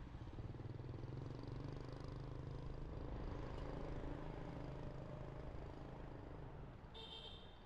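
A motor vehicle's engine hum swells as it passes close by for several seconds, then fades. A short high chirp comes near the end.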